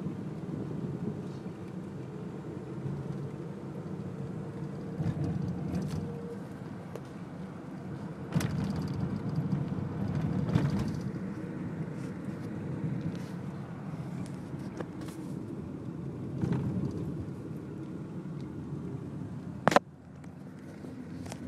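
Car driving, heard from inside the cabin: steady low road and engine noise, with a few light knocks and one sharp click about two seconds before the end.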